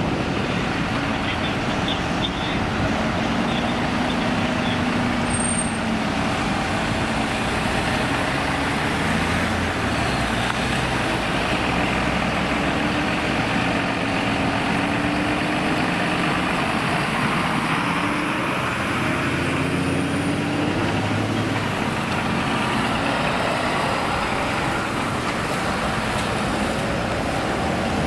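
Diesel engines of fire trucks and fire service vans pulling away one after another, each engine note rising and falling as the vehicle accelerates past.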